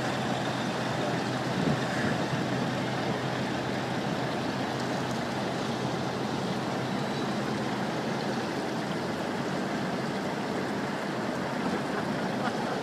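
Steady engine and tyre noise of a vehicle driving along a snowy motorway, an even rush with a low hum underneath.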